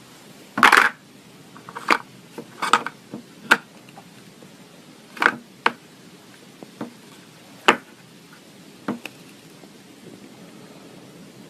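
Slime worked by hand, giving about a dozen irregular sharp pops and squelches. The loudest and longest comes about half a second in, and they die away after about nine seconds.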